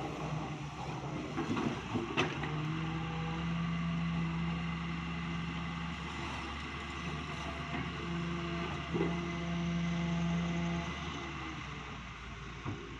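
Daewoo Solar 130 wheeled excavator's diesel engine and hydraulics working under load as it pushes down on its bucket to free itself from the mud. A steady drone sets in about two seconds in and eases off near the end. There is a clank about two seconds in and another near nine seconds.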